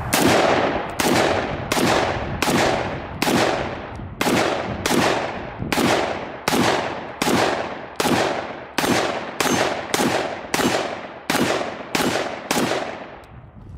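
Springfield Saint Victor AR pistol with a 10.5-inch barrel in 5.56/.223, fired semi-automatically: about seventeen shots in steady succession, a little over one a second, each with a long echo trailing off.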